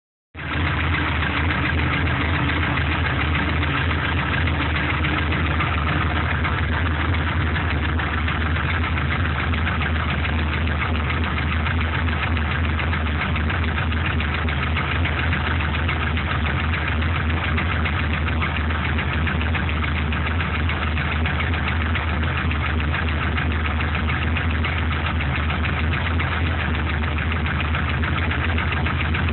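GM LS1 5.7-litre V8 idling steadily once warmed up, with a tick and knocking noise running through it that the owner suspects could be piston slap.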